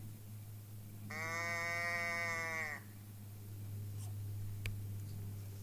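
A single drawn-out deer bleat, about a second and a half long, steady in pitch with a slight drop at the very end. A couple of faint clicks follow it.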